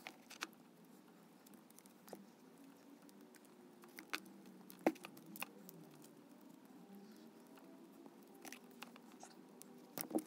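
Vinyl electrical tape being wrapped around a spliced power cord: faint scattered clicks and rustles of the tape and the cord being handled.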